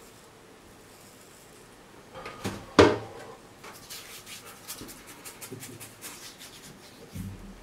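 Short, rapid scratchy strokes against the stubble of a partly shaved scalp, starting about three and a half seconds in, after one loud knock of handling a little before. A low thud near the end.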